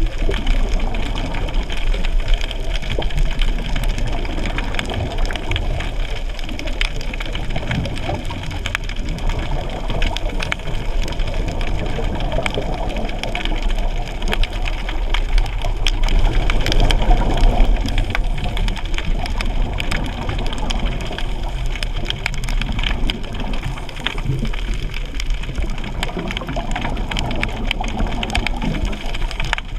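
Underwater ambient noise: a steady low rumble with constant crackling clicks.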